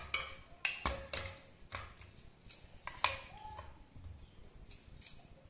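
Long steel ladle scraping and clinking against a metal cooking pot while stirring thick goat-leg curry: a string of sharp knocks, some with a short ring. The loudest comes about three seconds in.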